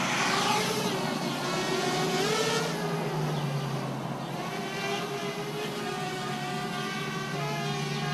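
Parrot Bebop 1 quadcopter's four electric motors and propellers spinning up for takeoff, a rising whine near the start, then a steady buzzing whine whose pitch wavers as the drone climbs and holds in the air.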